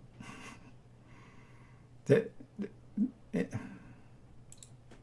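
A man breathes out, then makes a few short wordless sounds with his voice about two seconds in. A couple of faint clicks come near the end.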